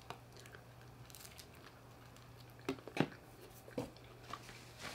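Quiet eating and handling sounds: soft clicks and smacks of someone chewing pizza crust and handling it, with a few sharper clicks around the middle.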